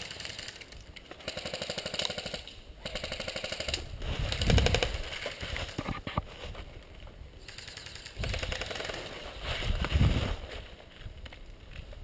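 Airsoft electric guns firing several full-auto bursts, each a rapid, even clatter of shots. Two low rumbles, about four and ten seconds in, are the loudest sounds.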